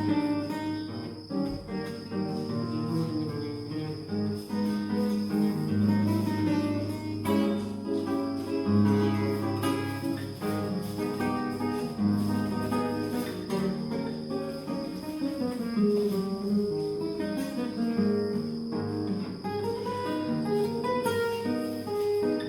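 Spanish guitar played solo, plucked melody and chords moving continuously. A steady high cricket trill runs underneath.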